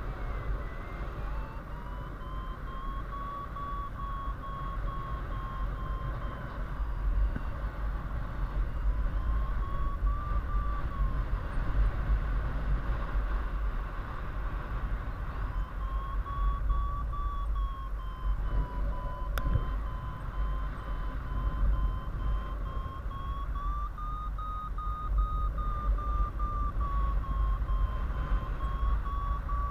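Paragliding variometer beeping in a fast stream, its pitch slowly rising and falling with the climb rate as the glider circles in a thermal, over wind rushing on the microphone. A single sharp click about two-thirds of the way through.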